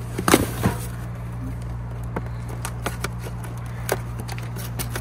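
Cardboard boxes and cases of canned Perrier being handled and shifted in a dumpster: a few knocks and rustles, loudest about half a second in, then scattered light clicks, over a steady low hum.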